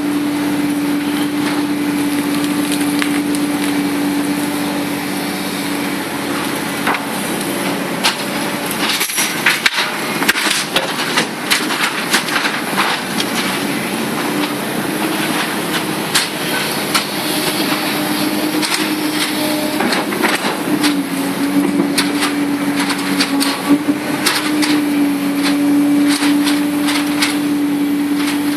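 Komatsu PC300-8 hydraulic excavator running with its diesel engine at a steady pitch. From about a third of the way in, a dense run of irregular sharp cracks and knocks rides over it, easing off near the end.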